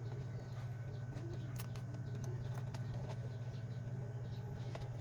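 Faint light clicks and small scratchy taps, as of small tools or parts being handled during a phone teardown, over a steady low hum.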